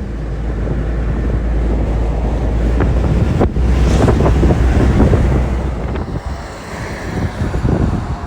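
Wind buffeting the microphone: a loud, heavy low rumble that builds over the first few seconds and eases off near the end, with a brief break about three and a half seconds in.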